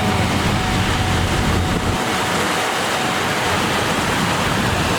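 Steady loud rush of storm wind and rain, with a low rumble that drops away about two seconds in.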